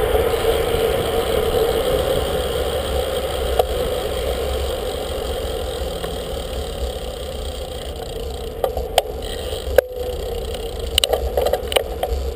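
Steady wind and road noise on a camera riding on a road bicycle in motion. A few sharp clicks and rattles come in the second half.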